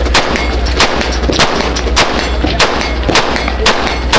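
Semi-automatic rifle fired in steady succession, about one shot every 0.6 seconds, with fainter shots in between.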